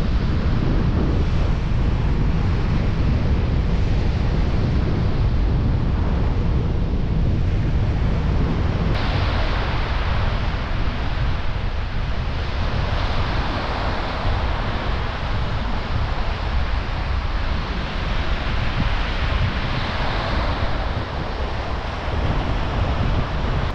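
Strong wind buffeting the microphone with a heavy low rumble, over the steady hiss of surf washing on the beach. The hiss turns suddenly louder about nine seconds in.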